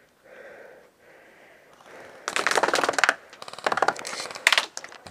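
Airsoft gun firing full-auto as rapid runs of clicks. A long burst starts a little over two seconds in, followed by two shorter bursts.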